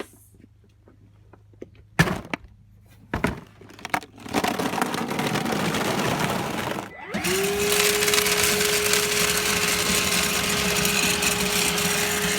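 Two sharp knocks, a few seconds of loud rushing noise, then a vacuum cleaner motor starting about seven seconds in, its whine rising quickly and then holding steady over a rush of air.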